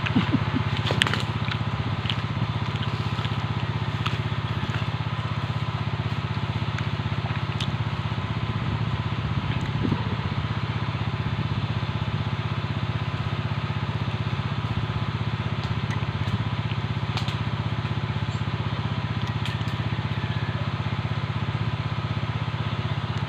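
A steady, unchanging motor drone, like a small engine running at a constant speed, with a few faint clicks over it.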